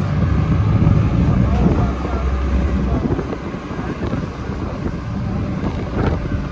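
Heavy diesel truck engine running, its low rumble loudest for the first three seconds and then easing, with wind buffeting the microphone.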